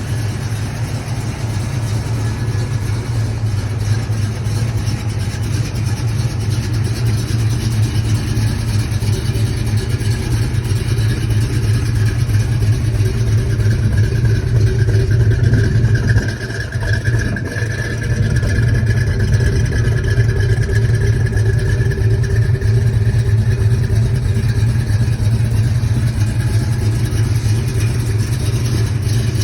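1970 Pontiac V8 with Rhoads flat-tappet lifters and iron heads running under way, a steady low drone that builds slowly, dips briefly about halfway through, then runs on steady. Its clatter is the Rhoads lifters, which the owner says is how such an engine sounds, not rod knock or piston slap.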